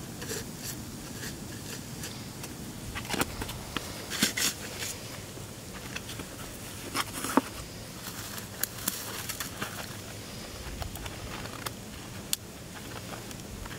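Rubber-gloved hands working dry grass and handling small gear: faint scattered rustles and crackles with a few sharp clicks, the clearest about 3, 4, 7 and 12 seconds in.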